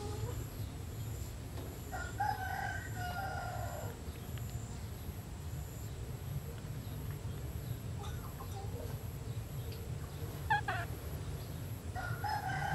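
A rooster crowing twice, about two seconds in and again near the end, each crow lasting about two seconds, with a short call about ten seconds in, over a steady low rumble.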